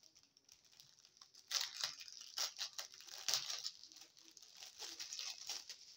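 Small plastic bags of diamond-painting drills crinkling as they are handled, in irregular bursts of crackles starting about a second and a half in.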